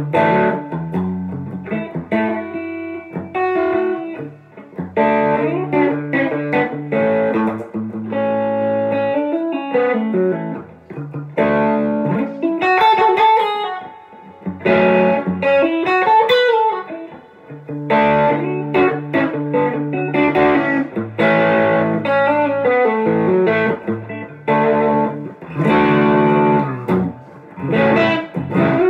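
1992 Gibson Les Paul Studio electric guitar with humbucker pickups, played through an amplifier: rock riffs and chords with bent notes and short pauses between phrases.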